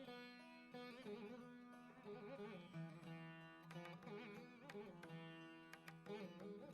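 Quiet background music of plucked strings in an Indian classical style, with a bending, ornamented melody over a steady drone.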